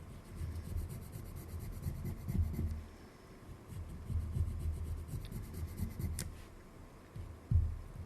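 Irregular scratching and rubbing as a toothpick scrapes softened old light-seal foam residue out of a Pentax K1000 camera body, with a sharp click about six seconds in.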